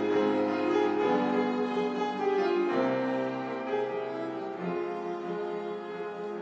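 Piano and string quartet (two violins, viola and cello) playing a slow instrumental passage of long, sustained chords, gradually getting softer toward the end.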